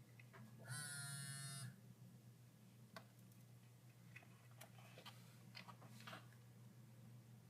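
Faint scattered clicks and taps from handling the laptop's bottom case and tools, over a low steady hum, with a brief buzzing whine about a second in.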